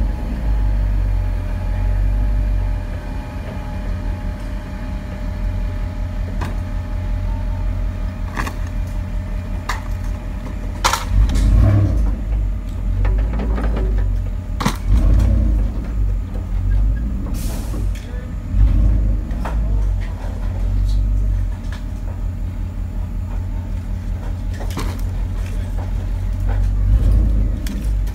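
Large truck's diesel engine idling, a steady low rumble, with several sharp clicks scattered through the middle.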